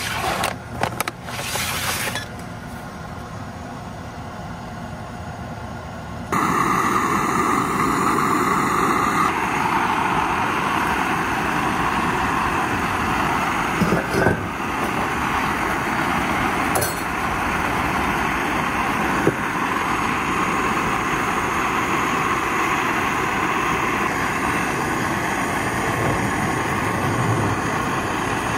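A few knocks of items being handled, then, about six seconds in, the steady hissing roar of a Fire Maple canister gas camp stove burning under a pot of simmering steak and vegetables, with an occasional clink of a utensil.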